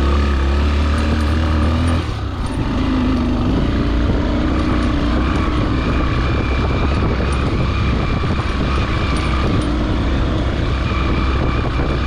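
Motorcycle engine running steadily as the bike is ridden, its note dipping briefly about two seconds in.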